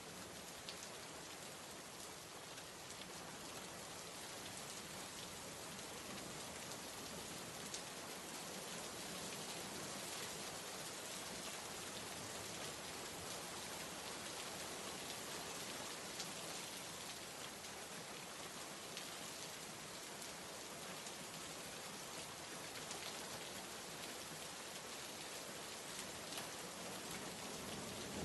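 Steady rain, an even hiss with scattered drops ticking on a surface.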